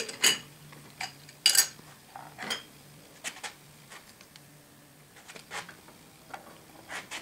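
Scattered metal clinks and clanks as the hold-down clamps are undone with a wrench and the long steel lead screw is handled on the milling machine's iron table; the sharpest strike comes about a second and a half in. A faint low hum runs underneath.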